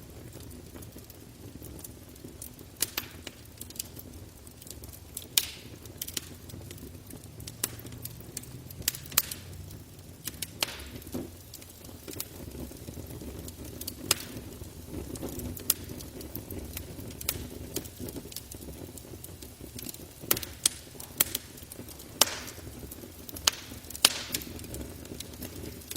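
Wood campfire crackling, with irregular sharp pops and snaps over a steady low rumble of the flames.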